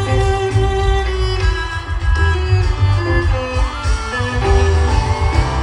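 Live band playing an instrumental passage, a violin carrying long held notes and a few slides over heavy, steady bass.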